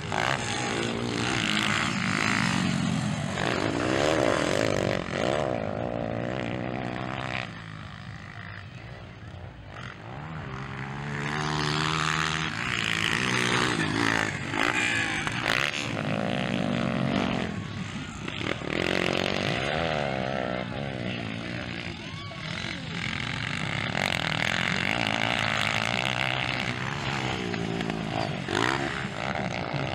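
Off-road motocross bike engines revving hard and shifting as the bikes race past, the engine note repeatedly climbing and dropping in pitch, sometimes with more than one bike at once.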